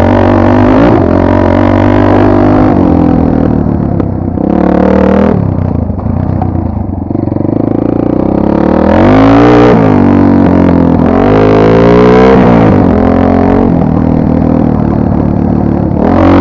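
Two-stroke dirt bike engine running hard, its revs rising and falling again and again as the bike is ridden, with some clatter.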